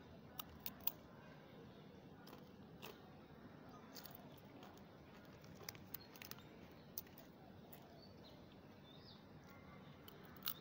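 Scattered crisp crunches of a fried peanut cracker (rempeyek kacang) being bitten and chewed: a few in the first second, more around the middle.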